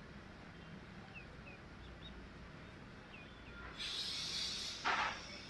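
Spatula stirring thick chicken masala in a kadhai: a hissing sizzle for about a second starting a little past halfway, then a short scrape. A few faint bird chirps come earlier.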